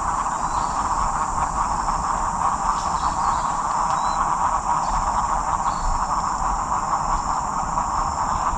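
Steady, dense rainforest chorus of insects and frogs: a full mid-pitched hum under a thin, high, unbroken whine.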